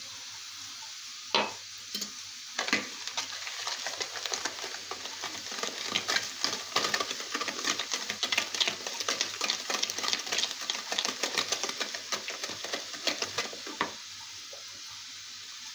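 Eggs and sugar being beaten by hand with a wire balloon whisk in a plastic bowl: a few single knocks, then a fast, steady run of clicking and scraping of the wires against the bowl from about three seconds in, stopping shortly before the end.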